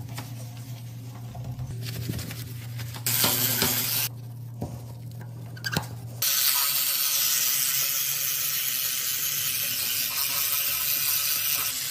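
A steady hissing rush of water in a toilet bowl foaming with blue cleaner starts abruptly about six seconds in. Before it there is a low steady hum with a brief louder noise around three seconds in.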